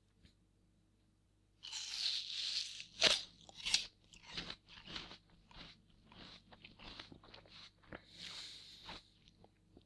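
A crisp apple being bitten into and chewed. The bite comes about a second and a half in with the loudest crunch, then the mouthful is chewed in short, irregular crunches.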